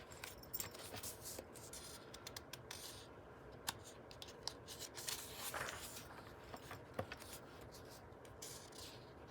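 Pages of a book being handled and turned: soft paper rustling and small clicks, with a longer swish of a page turning about five and a half seconds in.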